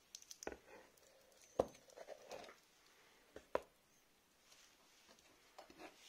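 Light clicks and taps of a stainless-steel watch bracelet being handled, its links knocking together, with two louder knocks about one and a half and three and a half seconds in.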